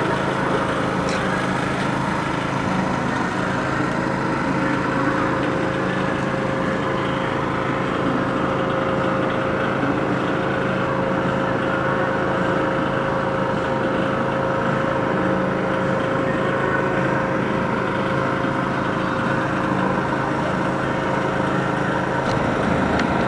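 Steady hum of machinery in a train assembly hall, a constant drone with a held whining tone over it.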